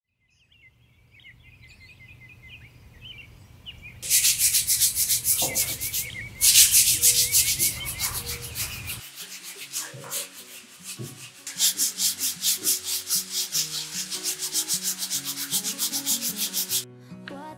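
Sandpaper rubbed by hand over an old, rough wooden chair, in quick rhythmic back-and-forth strokes that start about four seconds in and stop shortly before the end. The old wood is being sanded to prepare it for painting.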